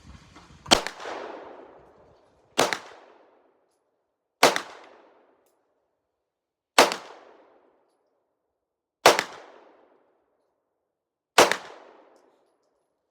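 Six single shots from a Glock 45 9mm pistol, fired at a slow, uneven pace about two seconds apart, each shot trailing off in a short echo.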